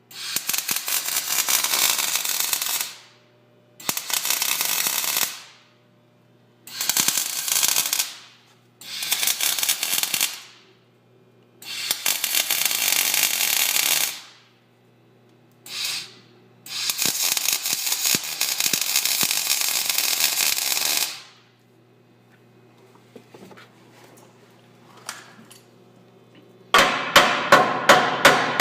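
A power tool working sheet metal in bursts of one to four seconds with short pauses between them. Near the end come sharp hammer blows on metal, about three a second.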